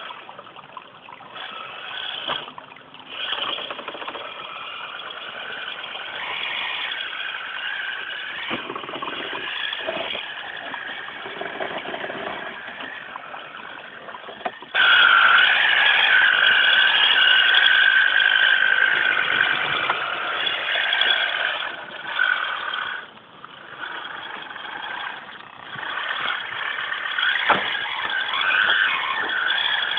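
RC rock crawler with a Ford Raptor body, its electric motor and gearbox whining as it crawls over rocks, the whine wavering with the throttle. About halfway it suddenly gets much louder.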